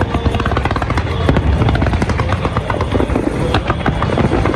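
Fireworks going off in quick succession: a dense run of sharp pops and crackles over a continuous low rumble.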